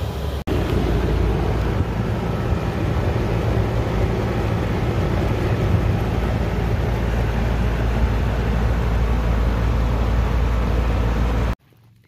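Steady, loud running noise of an outdoor air-conditioner condensing unit heard close up, a low rumble of fan and compressor. It breaks off for an instant about half a second in and cuts off suddenly near the end.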